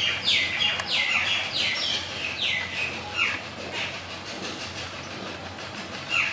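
Jungle babbler calling: a quick run of about seven falling notes in the first three seconds, then one more near the end, over a steady background noise.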